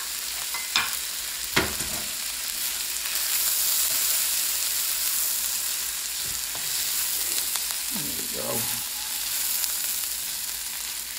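Shrimp, onions and peas sizzling in a hot wok over medium-high heat, stirred and turned with a metal spatula. A couple of sharp knocks come in the first two seconds.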